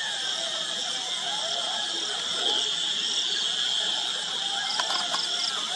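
Night insect chorus, a steady shrill with pulsing trills above it, over many faint, overlapping short animal calls that rise and fall in pitch. A few clicks come near the end.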